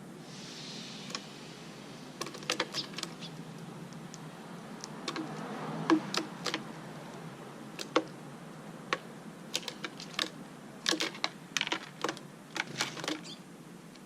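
Irregular sharp clicks and taps, some single and some in quick clusters, over a low steady hum.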